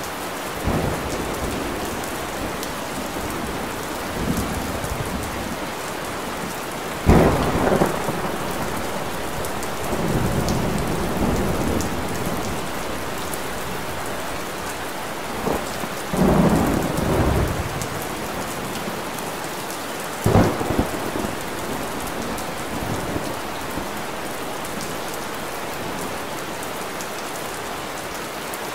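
Steady rain falling, with a few brief, louder bursts of low noise about 7, 10, 16 and 20 seconds in.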